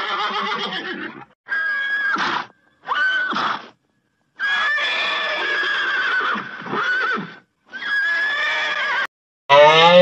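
Horse neighing: about five whinnies in a row, separated by short silent gaps, the longest lasting nearly three seconds. Just before the end a different, lower call with a falling pitch begins.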